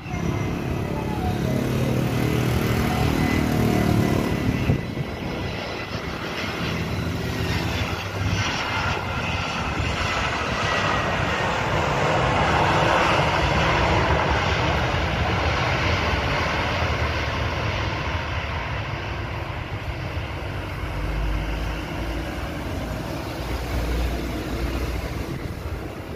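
Airbus A320-214 airliner's jet engines during landing, with a steady jet roar and a high fan whine that slowly falls in pitch. The roar is at its loudest about halfway through, as the plane rolls down the runway after touchdown.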